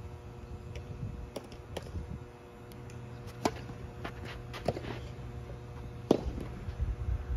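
Tennis ball being struck by a racket and bouncing on the court: a handful of sharp pops and knocks, the loudest about three and a half seconds and six seconds in, over a faint steady hum.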